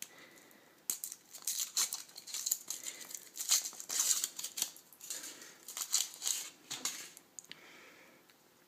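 Foil wrapper of a Kinder Surprise chocolate egg being peeled off by hand, crinkling and rustling in irregular bursts for several seconds before it goes quiet near the end.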